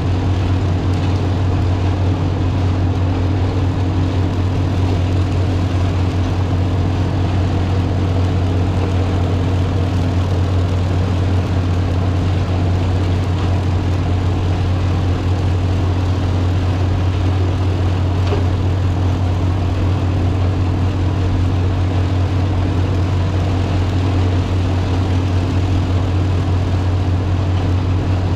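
Tractor and PTO-driven Bearcat flail chopper running steadily while chopping green grass and blowing it through the spout into a wagon: an even, unbroken engine-and-machine hum.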